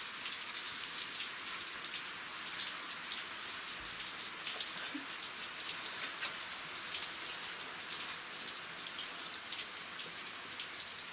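Heavy rain, a downpour, falling outside: a steady hiss dotted with many small drop ticks, heard through an open door.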